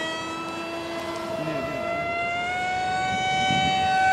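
FF-T50 foam RC jet model making a high-speed pass, its motor giving a steady high-pitched whine. The pitch rises slightly and the sound grows louder toward the end as the plane approaches.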